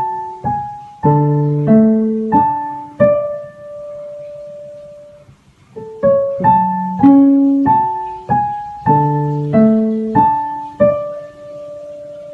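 Electronic keyboard playing a short melody with chords, a note or chord about every half second. The phrase ends on a held note, and after a short pause the same phrase is played again, ending on a held note.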